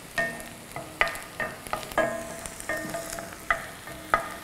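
Wooden spatula stirring chopped onions and peas frying in butter in a pan: a soft sizzle under sharp knocks of the spatula against the pan, two to three a second, each ringing briefly.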